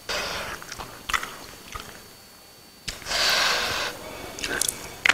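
Close-miked eating by hand: chewing and small mouth clicks, with a loud hissing rush of noise about a second long a little past halfway.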